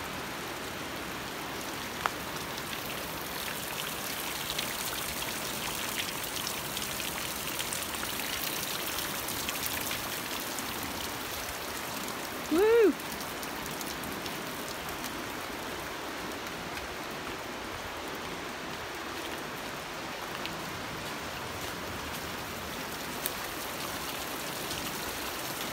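Steady rush of running water, high and swollen from flooding, heard as an even hiss. About halfway through, a short voice-like call that rises and falls in pitch stands out briefly as the loudest sound.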